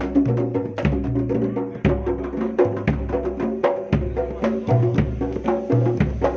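Pencak silat accompaniment music led by kendang drums. Fast, sharp hand strokes play over deep low drum strokes that ring on, with sustained pitched notes beneath.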